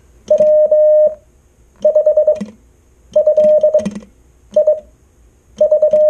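Morse code sent by hand on a chrome semi-automatic 'bug' telegraph key. The radio's steady mid-pitched sidetone beeps out dits and dahs in five short runs of characters, and the key's contacts click along with it.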